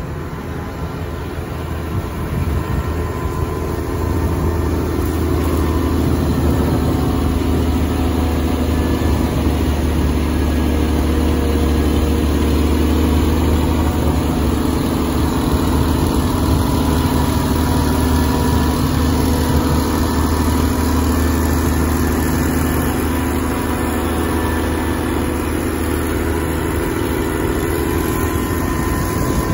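Cat 160M motor grader's diesel engine running steadily under load as it plows snow, growing louder about four seconds in as the machine draws closer.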